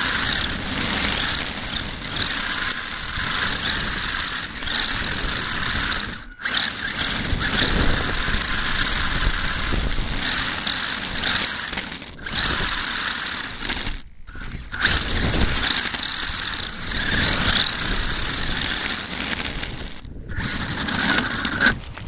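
HSP RC buggy's motor and drivetrain running from on board the car, the whine rising and falling with the throttle over a rumble of tyres on the road, cutting out briefly three times.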